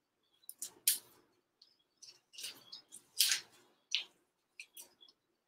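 Dry onion skin crackling and rustling as an onion is peeled by hand, in short irregular scratchy bursts, the loudest a little past three seconds in.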